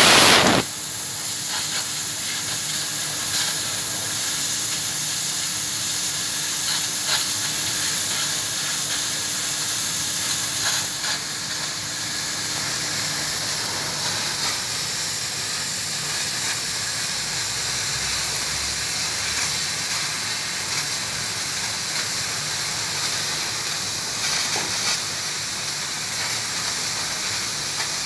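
3 kW fiber laser cutting thin sheet metal: a steady hiss of the assist-gas jet from the cutting head as it cuts. A faint low hum stops about halfway.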